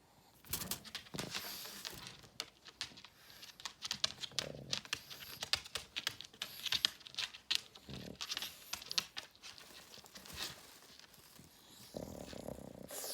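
A Pekingese stirring on its bedding: irregular crinkling and rustling clicks with a few soft low thumps.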